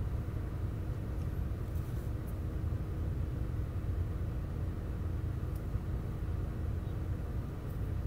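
A steady low rumble with a faint constant hum, with no distinct events.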